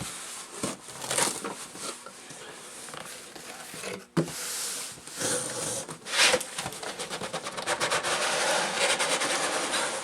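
Cardboard box and its packing material being opened and handled: rustling, scraping and clicks, turning into a quick run of dense crinkling about six seconds in.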